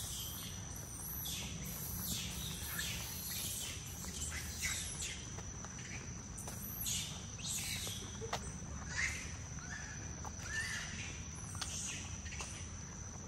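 Forest ambience: many birds chirping in short calls, some sliding up or down in pitch, over a steady high-pitched whine and a low rumble.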